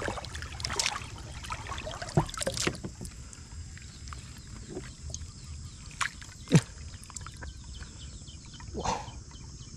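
Hands sloshing and splashing shallow water in a woven bamboo basket while scooping up goldfish, with several short, sharper splashes scattered through.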